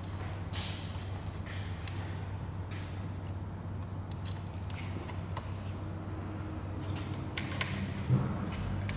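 Faint clicks and rustles of hands fitting small screws through a carbon-fibre wing endplate, over a steady low hum, with a soft thump near the end.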